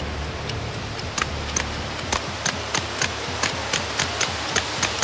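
Rapid, evenly paced string of suppressed 9mm shots from a Grand Power Stribog SP9A3G pistol-caliber carbine. The sharp cracks start about a second in and come about three to four a second.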